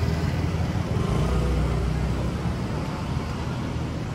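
City street traffic: a motor vehicle's engine running close by, a steady low rumble over general street noise.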